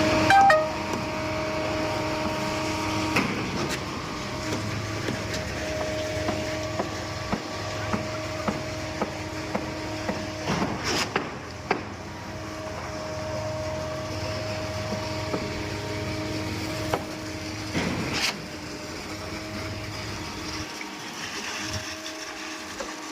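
Concrete-pouring machinery running steadily with a constant engine hum and drone, with scattered knocks and clatters, louder ones about three, eleven and eighteen seconds in.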